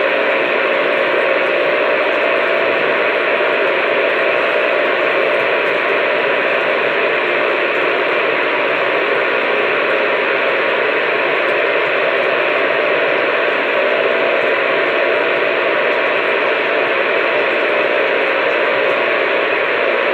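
Steady hiss of radio static at an even, unchanging level, with no voice on the channel.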